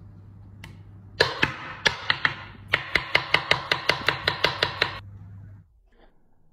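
Kitchen knife slicing raw potatoes against a wooden cutting board: a short irregular burst of cuts, then a fast even run of about five knife strikes a second that stops about five seconds in.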